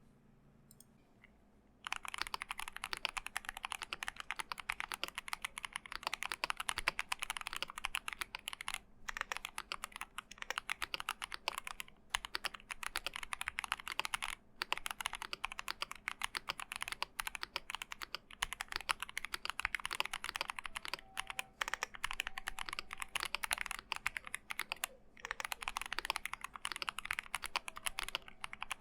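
Fast, continuous typing on a thocky GMMK Pro mechanical keyboard with stock Gazzew Boba U4T tactile switches, aluminium plate, PCB, case and PE foam mods. The typing starts about two seconds in, with a few short pauses, over a faint steady background hum.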